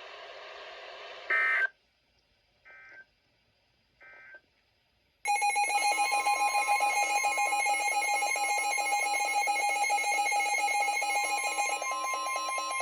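NOAA Weather Radio end-of-message data bursts over a hissing broadcast: one loud short burst, then two fainter ones about a second and a half apart. About five seconds in, a weather alert radio's rapidly pulsing alarm starts together with the broadcast's steady warning alert tone, which signals a new warning.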